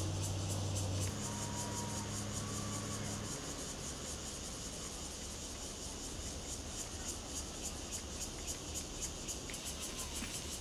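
Insects buzzing in a high, fast, even pulse, with a low steady hum under it that stops about three seconds in.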